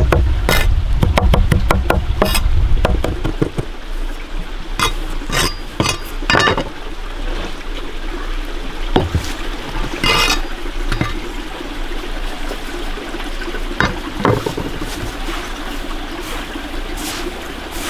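Serbian chef's knife chopping herbs rapidly on a wooden table for the first three and a half seconds or so. Then come scattered knocks and scrapes as the chopped herbs are swept into a pan of coarse salt, and hands mix the salt with a gritty rustle near the end.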